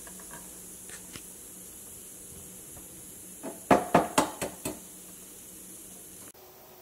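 A hard-boiled egg tapped against steel cookware to crack its shell: a quick run of about five sharp knocks a little over three seconds in, after a couple of faint clicks.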